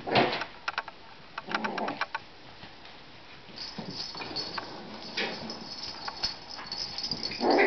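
Yorkshire terrier puppies playing, with a few short yips and whimpers and the light clicking and patter of their paws on the floor.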